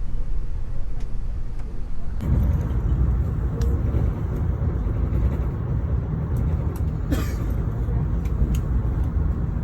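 Steady low rumble of an AREX airport train running, heard from inside the carriage. The rumble grows fuller about two seconds in, with a short hiss about seven seconds in.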